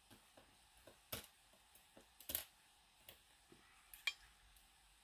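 Faint, scattered metallic clicks and taps of a metal tool and the small pins of a Defiant rim cylinder being handled at a pin tray during reassembly, with sharper clicks about a second in, around two and a half seconds and about four seconds in.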